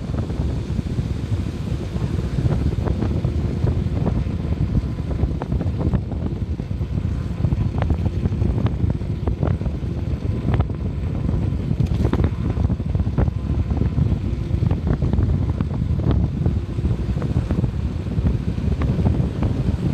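A vehicle travelling on the road, with steady low wind rumble buffeting the microphone and occasional small knocks from the road.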